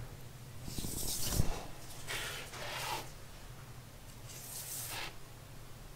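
Stiff-bristled brush scraping over freshly laid concrete in a boat's sump, roughening the surface so resin can key into it: three swishing strokes, with a sharp knock about a second and a half in. A steady low hum runs underneath.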